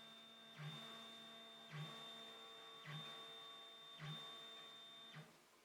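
3D printer's twin Z-axis stepper motors whining faintly and steadily as they drive the axis on its threaded rods, with a short rasp about once a second; the whine stops about five seconds in.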